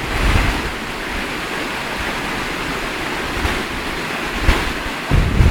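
Waterfall rushing steadily. A low rumble of wind buffeting the microphone comes in near the end.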